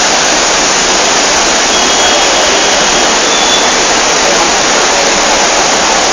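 Loud, steady roar of a torrent of floodwater rushing past.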